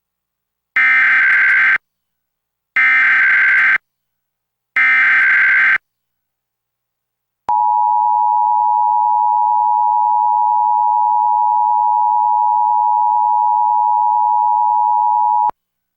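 Emergency Alert System SAME header: three one-second bursts of digital data warble, a second apart, the standard start of an EAS Required Monthly Test. About a second and a half later a steady attention tone sounds for about eight seconds and cuts off sharply.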